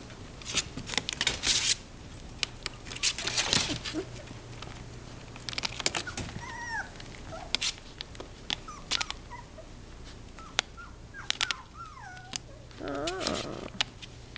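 Four-week-old Shetland sheepdog puppies scuffling and wrestling, their paws and claws scrabbling and scratching in quick clusters. From about six seconds in come a few short squeaky puppy whimpers, the longest and loudest a wavering whine near the end.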